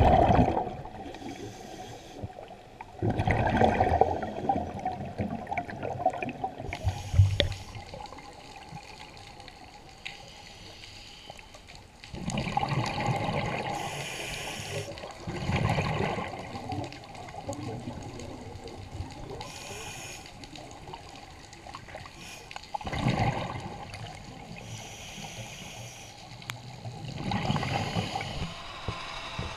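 Scuba diver's regulator breathing heard underwater: bursts of bubbling exhaust every few seconds, with quieter gurgling between them.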